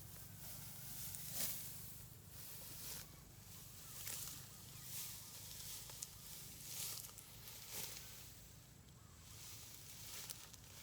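A string of short hissy swishes, roughly one a second and uneven in strength, over a low steady hum.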